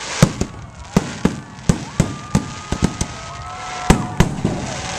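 Aerial fireworks shells bursting overhead in a rapid, irregular string of sharp bangs, about two or three a second.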